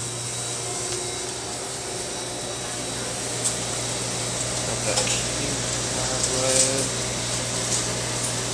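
Steady hum and hiss of refrigerated freezer cases running, with faint voices in the background and a few light clicks and plastic-bag handling sounds.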